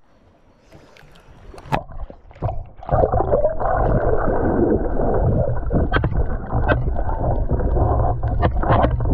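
Muffled underwater noise picked up by a GoPro in its waterproof housing: water rushing and gurgling around the submerged camera as a spearfisher swims, with a few sharp clicks. It starts quiet and swells to a steady, loud, dull rumble about three seconds in.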